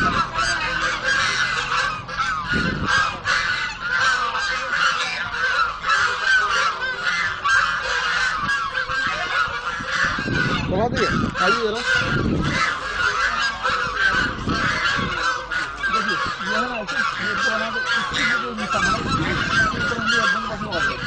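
A flock of birds calling all at once, a dense continuous chatter of many overlapping calls, with the splashing of a Labrador wading in shallow water around the middle.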